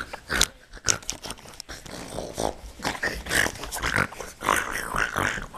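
A dog vocalizing close to the microphone in short, irregular bursts.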